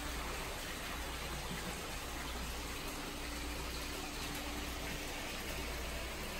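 Hot spring water pouring from spouts into open-air rock and stone pot baths, a steady splashing rush of water.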